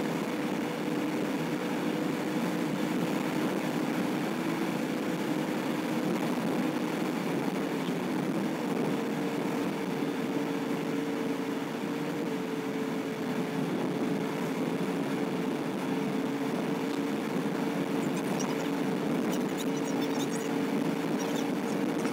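Car driving steadily at highway speed, heard from inside the cabin: constant road and tyre noise with a steady engine hum that shifts slightly in pitch.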